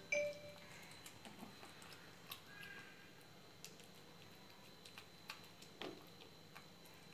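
A kitten eating wet pâté cat food from a plastic bowl: faint, scattered clicks and smacks of chewing and lapping. A short musical chime sounds right at the start.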